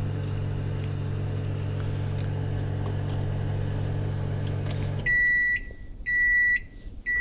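Microwave oven running with a steady hum, which stops about five seconds in, followed by three beeps signalling the end of the cooking cycle.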